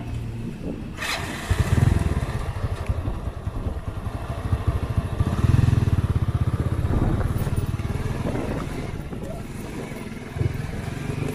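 Honda Win 100's single-cylinder two-stroke engine pulling the motorcycle slowly across sand. It revs up about two seconds in and again around five to six seconds, easing off between. It dips briefly near the end before picking up again.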